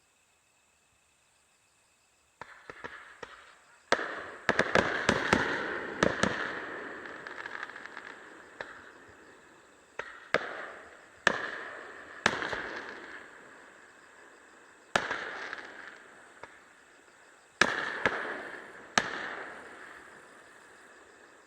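Aerial fireworks bursting. After a near-silent start there is crackling, then a quick cluster of sharp bangs, then single bangs every couple of seconds, each trailing off in a crackling rumble. Insects chirr steadily and faintly underneath.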